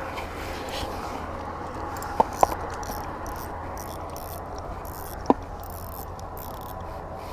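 Three sharp clicks, two close together about two seconds in and one more about five seconds in, from a spinning reel and rod being handled, over steady outdoor background noise.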